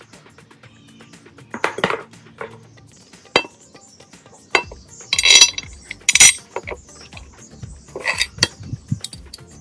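Small metal parts clinking and knocking against each other as they are handled: a string of separate sharp clinks with brief ringing, the loudest a little past the middle.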